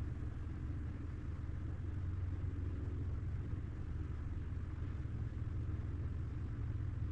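Steady low rumble of background room noise with no distinct clicks or knocks.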